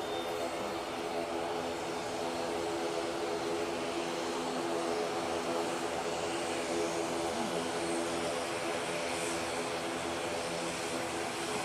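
ATR 72-600 turboprop taxiing, its engines and propellers giving a steady drone made of several even tones.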